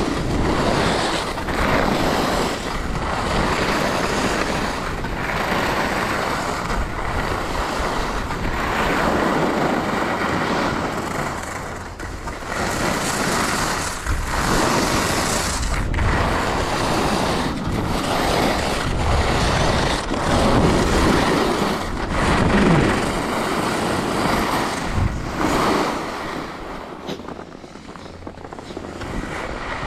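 Skis scraping and carving over groomed piste snow at speed, with wind rushing over the microphone. The noise swells and eases every second or two with the turns and drops quieter near the end.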